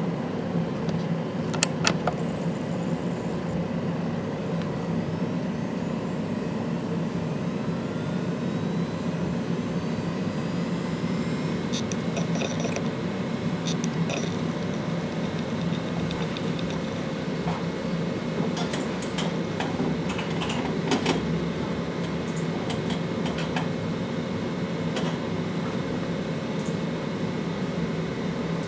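Western Digital WD2003FYPS 2TB 5400 RPM-class enterprise hard drive spinning with a steady hum. Head-seek clicks come in scattered clusters, around two seconds in, twelve to fourteen seconds in, and again from about nineteen to twenty-five seconds, as the drive works through an HD Tune benchmark.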